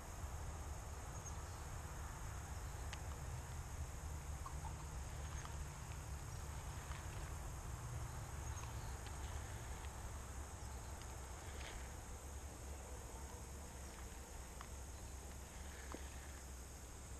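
Insects chirring steadily in a high, even band, over a low steady rumble, with a few faint scattered ticks.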